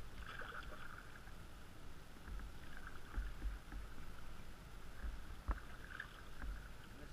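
Water splashing and lapping at the bow of a small inflatable boat being paddled along calm water, coming and going with low rumbles. One sharp knock comes about five and a half seconds in.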